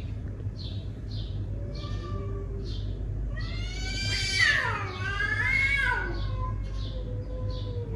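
Domestic cat yowling in a territorial standoff: a long wavering yowl that rises and falls, then trails into a low drawn-out moan. A bird chirps repeatedly in the background.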